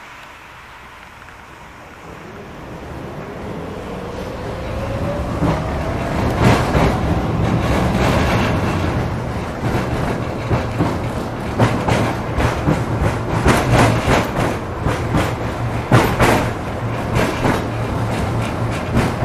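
Tram pulling away and gathering speed: its electric traction motors whine, rising in pitch over the first several seconds, then the wheels rumble along the rails with repeated clacks and knocks.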